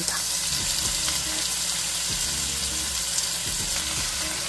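Chicken thigh and green onion skewers sizzling steadily in hot oil in a frying pan, with a few light clicks of metal tongs against the skewers and pan.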